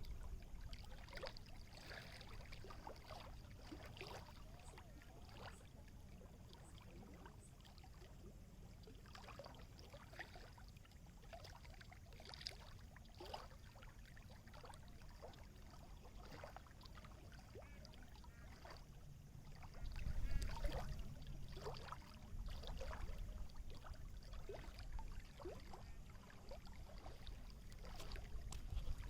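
Small water waves lapping and splashing, with many short gurgles and splashes over a steady low rumble. The rumble grows louder about two-thirds of the way through.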